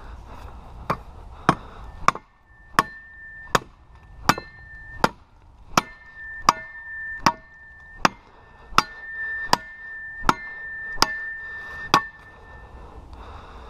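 Cold Steel Spetsnaz shovel chopping a point onto a wooden stick: about sixteen quick, evenly spaced strikes, roughly three every two seconds. Each hit leaves a metallic ping ringing from the steel blade.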